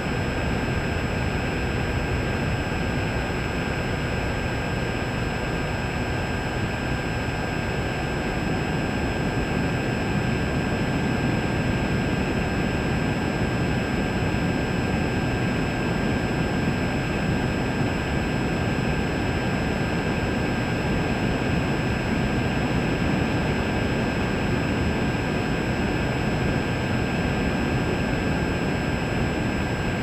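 Multirotor drone's motors and propellers running steadily: a constant whine of several fixed high tones over a dense rush of air, as picked up by the camera on board.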